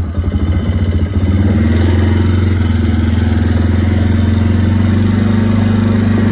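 Can-Am Outlander 450 ATV's single-cylinder engine running just after being started, at first with a pulsing idle, then stepping up to a louder, steadier note about a second in.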